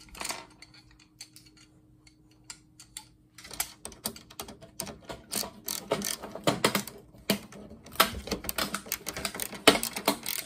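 Clicks, rattles and knocks of tools and parts being handled while pulling apart an old monitor: sparse at first, then quick and busier about a third of the way in.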